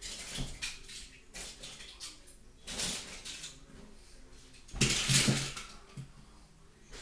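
Die-cast toy cars clinking and clattering as they are rummaged through and picked out, in a string of irregular knocks, with a louder clatter about five seconds in.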